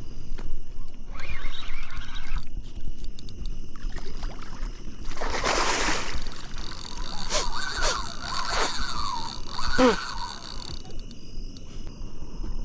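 A hooked gar thrashing and splashing at the water's surface, loudest about five seconds in, over a steady high drone of night insects.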